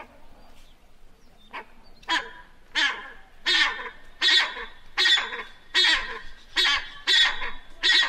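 Brown eared pheasant calling: a series of short, loud calls repeated about one every three-quarters of a second. The calls start faint about a second and a half in and grow louder.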